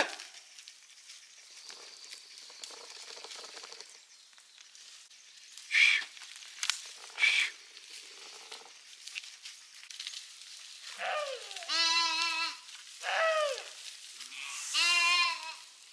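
Sheep in a flock bleating, three or four loud, quavering bleats in the last five seconds, over faint rustling. A few short high-pitched sounds come about six and seven seconds in.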